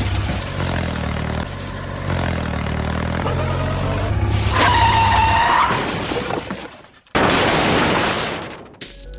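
Engine running steadily, then a loud crashing, shattering noise burst about seven seconds in that lasts around a second and a half.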